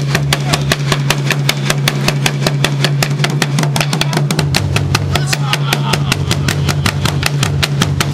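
Ensemble of traditional Burundian drums, tall wooden hide-headed drums beaten with sticks, playing a fast, steady, driving beat of many strokes a second.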